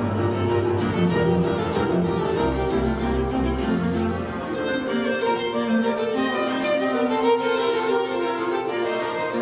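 Background music played on bowed strings, with low sustained bass notes that stop about four seconds in.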